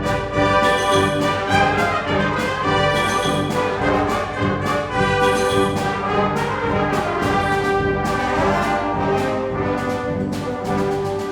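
Community concert band playing a loud, brass-heavy passage with sustained chords, punctuated by regular percussion strikes.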